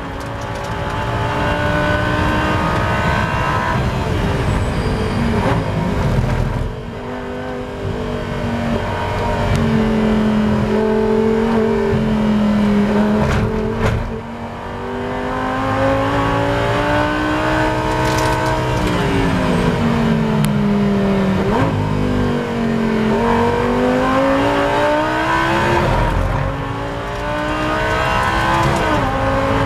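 Lamborghini Super Trofeo race car's V10 engine heard from inside the cockpit at racing speed. The engine note falls away under braking about a quarter of the way in and again into the slowest corner about halfway. It then climbs as the car accelerates, with brief dips as it changes gear.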